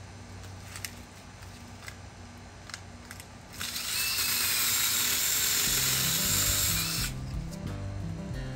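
A few light clicks, then a battery-powered IMOUMLIVE 6-inch mini chainsaw with a brushless motor runs for about three and a half seconds, cutting through a branch, and stops abruptly. Background music with a steady beat comes in under it a couple of seconds before it stops.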